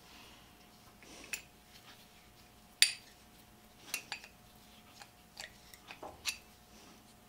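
Scattered metal clicks and clinks as a wrench and pliers work the steel axle nut of a treadle grinder, with one sharp clink about three seconds in.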